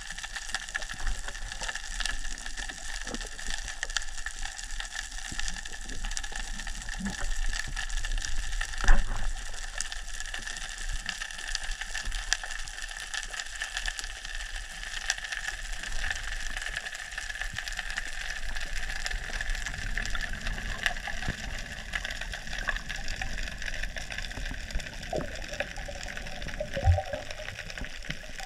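Underwater ambience picked up by a GoPro on a pole during a freedive: a steady hiss laced with a constant fine crackle of tiny clicks. A single sharp knock comes about nine seconds in, and a short burst of sound near the end as the diver breaks the surface.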